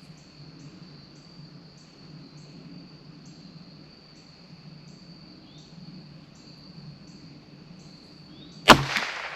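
Insects chirring steadily in the background, then a single sharp crack from a CZ 457 .22 LR bolt-action rifle near the end.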